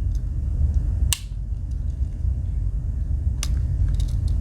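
Two sharp clicks about two seconds apart over a steady low hum: the tools of a Victorinox Cyber Tool 29 Swiss Army knife snapping against their backsprings as they are opened or closed.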